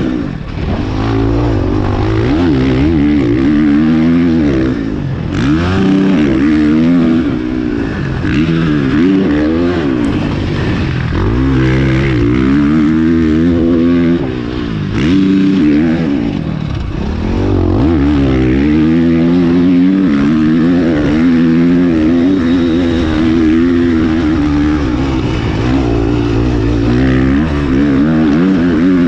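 Husqvarna FC450 motocross bike's four-stroke single-cylinder engine being ridden hard, heard from the rider's helmet camera. Its pitch climbs again and again as the throttle is held through the gears, then drops sharply each time the rider shuts off, with a few brief lulls in loudness.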